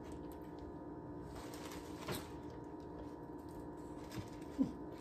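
Faint crinkling of deli wrapping as cheese slices are peeled off and laid on a collard green wrap, with a couple of soft handling sounds near the end, over a steady faint hum.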